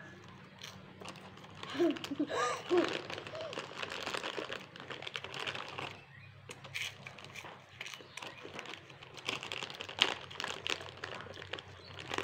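Plastic snack packet crinkling and rustling in irregular crackles as a hand rummages in it for snacks.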